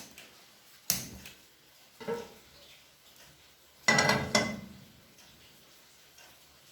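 A metal frying pan being handled and set down on the stove: a few separate knocks, then a louder cluster of clanks about four seconds in with a short metallic ring.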